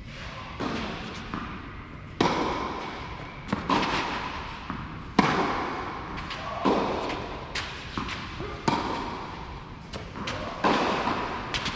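Tennis ball struck back and forth with rackets in a baseline rally on a clay court: about seven sharp hits, roughly one every one and a half seconds, each echoing in the covered hall, with softer knocks between them.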